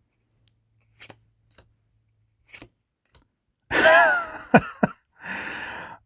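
A few faint ticks, then about four seconds in a loud rustling tear of a foil booster pack being ripped open, with two sharp crackles and more rustling of the wrapper.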